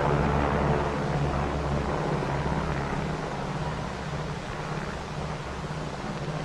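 Large propeller aircraft engines droning: a steady low hum under a rushing noise, slowly fading as the plane flies away.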